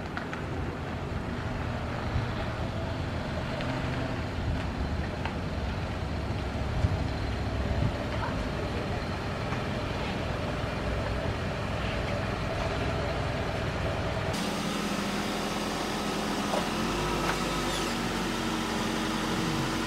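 2022 Toyota Camry XSE driving slowly up to the house and into the driveway: a steady low engine and tyre rumble. About fourteen seconds in the low rumble drops away, leaving a quieter steady hum.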